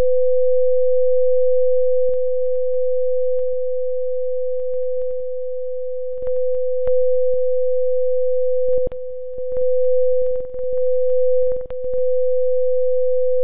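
Steady computer-generated tone of about 505 Hz from the PhET Sound simulation's two-source interference demo. Its loudness dips and recovers several times in the second half as the virtual listener is moved between loud and quiet spots of the interference pattern, with a few faint clicks.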